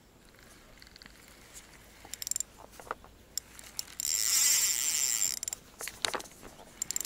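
Spinning reel on a carp rod being wound in while a hooked silver carp is played in to the bank. There are a few short rattly runs of winding, and the loudest and longest lasts about a second and a half in the middle.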